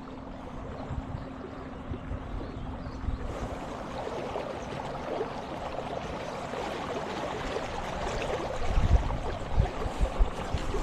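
Water rushing and gurgling alongside a small boat on a river, growing louder, with wind thumping on the microphone near the end. A steady low hum runs under it for the first three seconds, then stops.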